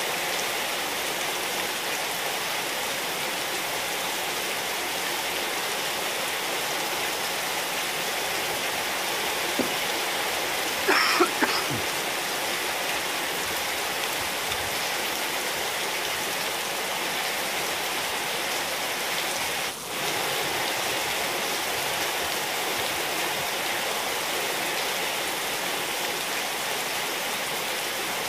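Steady rain falling on a wet tiled courtyard and potted plants. A few brief sharp knocks stand out about eleven seconds in.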